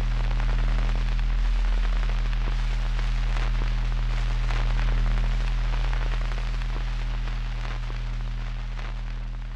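Dark ambient drone from the end-credits soundtrack: a low sustained hum with crackling, static-like noise over it, slowly fading toward the end.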